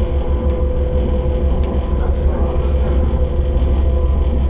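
AnsaldoBreda driverless metro train running through a tunnel, heard from inside the car: a steady low rumble of wheels on rail under a constant whine, with a faint click or two.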